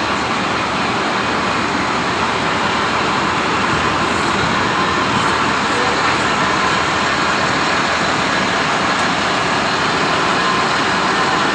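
Down-the-hole water-well drilling rig running: a loud, steady machine noise that does not let up.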